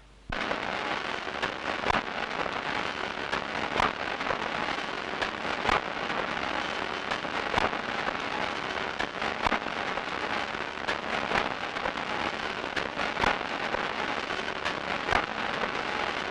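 Textile mill machinery running: a dense, steady clatter with a louder sharp stroke about every two seconds.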